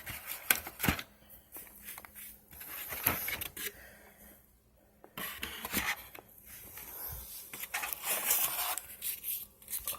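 Hands handling packaging and small accessories from a drone box: rustling, scraping and scattered light clicks, with a short quiet spell about halfway through.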